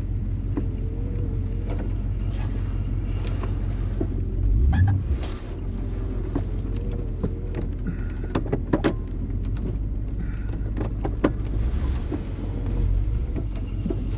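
Off-road truck engine running steadily, heard from inside the cab, with a low thump about five seconds in and several sharp clicks and knocks later on.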